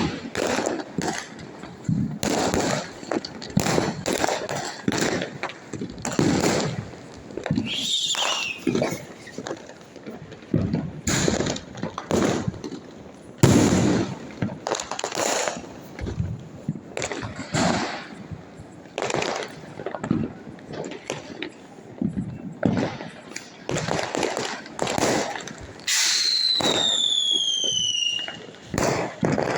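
Fireworks and firecrackers going off one after another in a dense string of bangs and crackles. A whistle falls in pitch about eight seconds in, and a longer falling whistle comes near the end.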